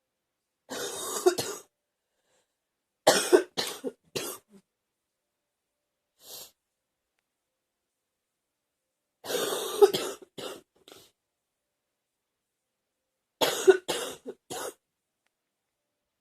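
A girl coughing in four separate bouts, each of two to five quick, harsh coughs.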